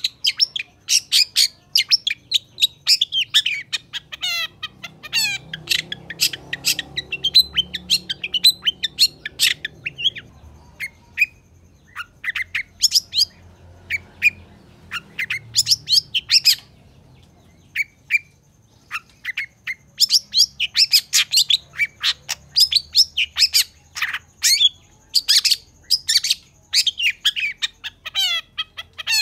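Long-tailed shrike singing hard: long runs of rapid, sharp, scratchy high notes chattering one after another, broken by a few short pauses.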